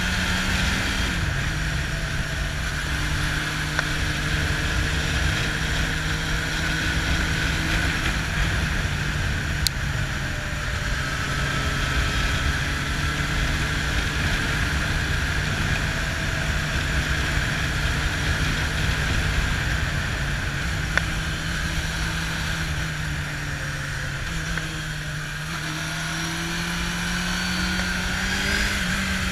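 Kawasaki Zephyr's air-cooled inline-four engine running at a steady cruising speed, heard from on board over wind and road rush. The engine note dips briefly about a second in and rises near the end.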